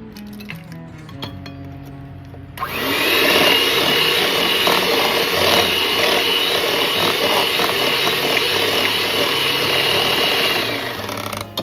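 Electric hand mixer switched on about two and a half seconds in, running steadily with a constant whine for about eight seconds as it beats eggs into creamed butter, sugar and oil, then stopping.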